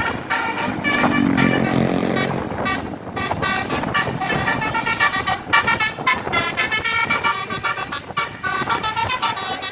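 Tour bus telolet horn playing a rapid run of short, high multi-tone notes, with a lower, longer horn tone about a second in.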